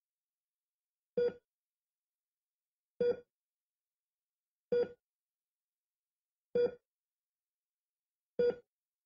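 A short electronic note at the same pitch each time, repeating five times about every 1.8 seconds with silence between.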